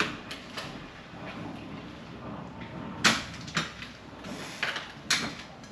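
A few short clicks and knocks from the ceiling fan's light globe and light-kit parts being handled and fitted. The sharpest comes about three seconds in, with a couple more near the end.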